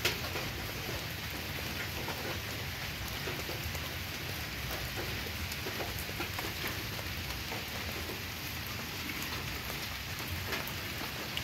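Steady rain falling, an even hiss with scattered drops pattering.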